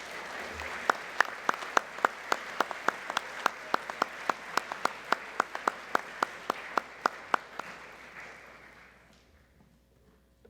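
Audience applauding, with one person close by clapping loudly in an even rhythm of about three to four claps a second. The applause dies away near the end.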